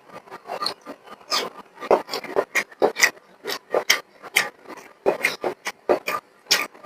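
Close-miked eating sounds: wet chewing and lip-smacking on a mouthful of rice and beef, a few irregular smacks a second.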